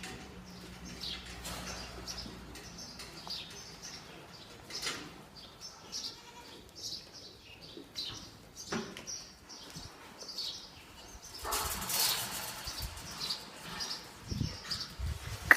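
Birds chirping in short, scattered calls, with a brief burst of broad noise about twelve seconds in.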